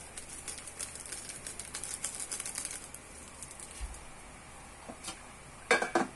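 Seasoning shaken from a small plastic sachet onto vegetables in a pot: a quick run of light ticks for about three seconds. Near the end an aluminium lid is set down on the aluminium pot with a short metallic clatter, the loudest sound.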